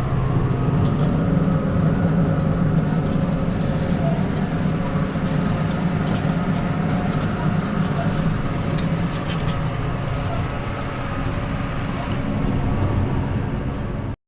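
Case Maxxum 150 tractor's six-cylinder diesel engine running steadily under load while pulling a four-furrow plough.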